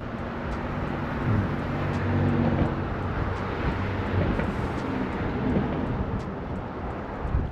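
A passing engine: a low rumble that swells over the first two seconds or so and then slowly fades.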